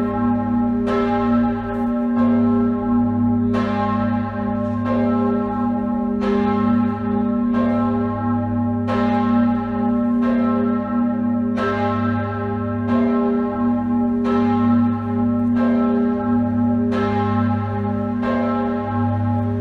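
The great church bell, tuned to G-sharp and cast in 1781 by Jakob Mathis Rageth of Chur, swinging and tolling on its own. It strikes steadily about once every second and a half, and each stroke rings on into the next with a deep hum.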